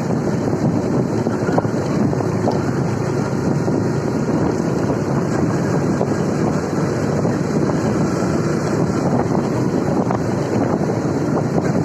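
Steady wind rush on the microphone with a motorcycle engine running underneath, as while riding.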